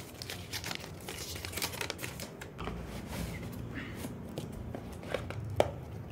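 Cardboard parcel and paper packing being torn open and crumpled by hand, rustling with scattered small clicks and one sharper click about five and a half seconds in.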